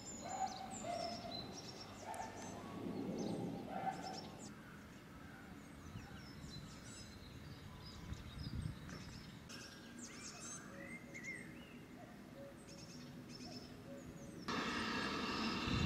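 Outdoor ambience with several songbirds chirping and trilling over a low background rumble. Near the end a louder, steady rushing noise cuts in abruptly.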